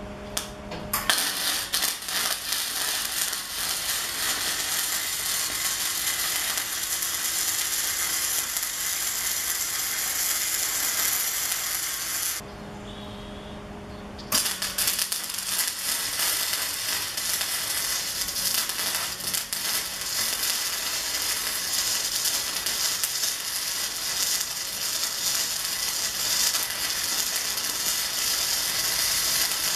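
Electric arc welding on a metal leg of a square-tubing frame: the arc's steady crackling sizzle starts about a second in. It stops for about two seconds near the middle, leaving a low hum, then starts again.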